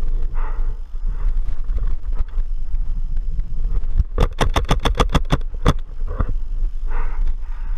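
Paintball marker firing a rapid string of about ten shots, about seven a second, starting about four seconds in and lasting about a second and a half.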